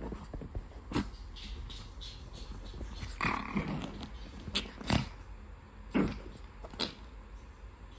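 Small dogs play-fighting over a rope toy, growling, with short sharp snarls about once a second and one longer growl a little after three seconds in.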